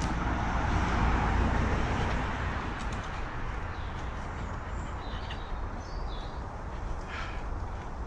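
Outdoor ambience: a steady rushing noise with a low rumble, strongest in the first couple of seconds, with a few faint bird chirps and a short call near the end.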